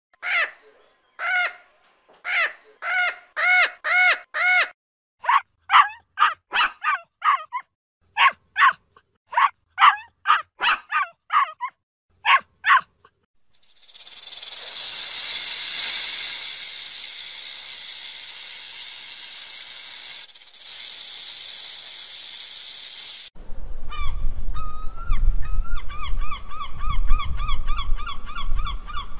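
A bird's short pitched calls, about twenty in quick groups over the first dozen seconds, then a steady hiss lasting about ten seconds, then a gull's rapid run of repeated call notes over a low wind rumble near the end.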